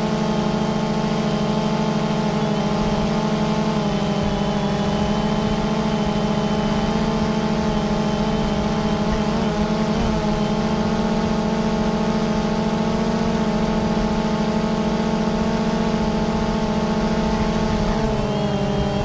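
Quadcopter rotors whirring: a steady, many-toned hum whose pitch wavers briefly about ten seconds in and steps down slightly near the end.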